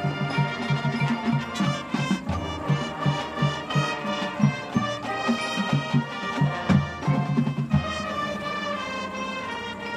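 High school marching band playing its field show: brass chords over a rapid low pulse, which gives way to held chords about eight seconds in.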